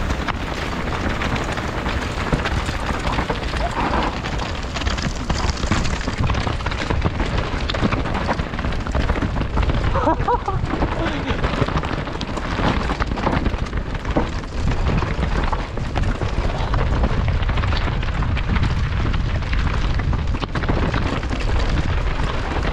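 Wind buffeting the microphone during a mountain-bike descent, a steady loud rumble over the noise of tyres rolling on rocky trail.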